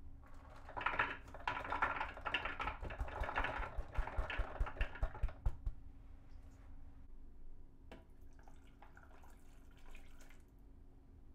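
Soybeans tipped from a woven basket, rattling and clattering into a plastic food processor bowl for about five seconds. Near the end there is a softer trickle of water being poured into the bowl.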